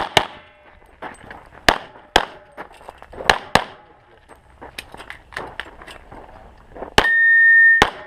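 Handgun shots fired in an uneven string at steel targets, the plates clanging and ringing after the hits. Near the end comes a loud, steady electronic beep of just under a second, typical of a shot timer.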